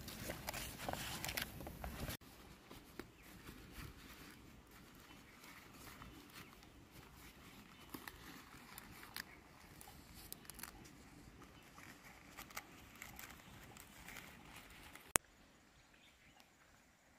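Banana leaves rustling and crinkling as they are folded by hand around a heap of small fish, loudest in the first two seconds. After that come fainter scattered clicks and crackles, with one sharp click about fifteen seconds in.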